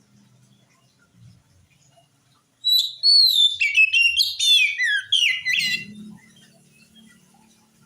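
Oriental magpie-robin singing one phrase of rapid, varied whistled notes that slide up and down, lasting about three seconds and starting about a third of the way in.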